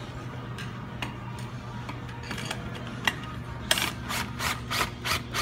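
A few scattered clicks, then from about two-thirds in a steady run of sharp mechanical clicks, about three or four a second, as a tool tightens the tensioning bolt on the sign frame's bracket to pull the sign tight. A low steady hum underneath.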